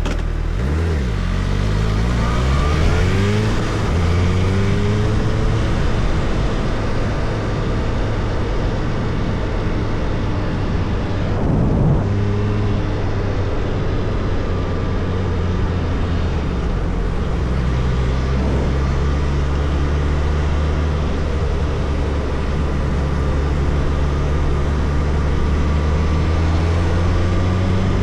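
Suzuki Hayabusa's inline-four engine on the move, revs climbing up through the gears in the first few seconds, then running steadily at cruise. The revs rise briefly again around the middle and once more near the end.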